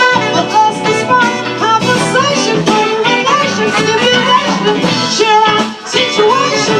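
Live band music with guitar, a blues-tinged groove running continuously with a melodic line sliding in and out.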